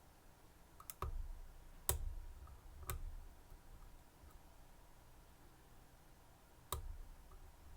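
Sharp clicks from lock picking tools working in an EVVA EPS slider lock, each with a soft low thump: a quick pair about a second in, single clicks near two and three seconds, and another near the end.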